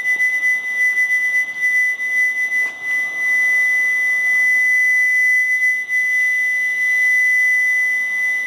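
A loud, steady, high-pitched whine with a fainter, higher tone above it; its level wavers for the first few seconds, then holds steady. It is the unexplained sound heard hanging in the air over the city, whose source could not be located.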